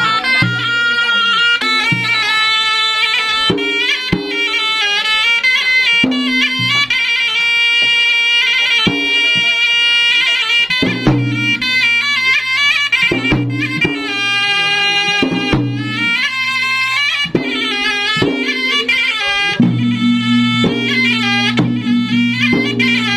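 Traditional Makassar-Bugis gendang drum ensemble playing: hand-beaten gendang drums under a shrill, reedy wind-pipe melody that bends and slides between notes.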